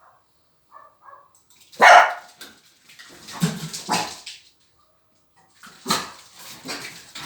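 Dogs barking in bouts: one loud bark about two seconds in, a quick run of barks a second or two later, and more barking near the end.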